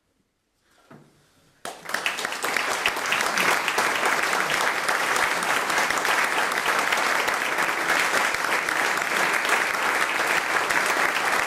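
Audience applauding in a small hall. A brief hush, then the clapping starts suddenly about a second and a half in and carries on steadily.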